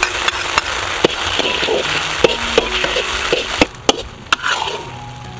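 Sauce sizzling in a stainless steel wok while a metal spatula stirs it, with sharp clinks of the spatula against the wok. The sizzle drops away about three and a half seconds in, leaving a few more sharp taps.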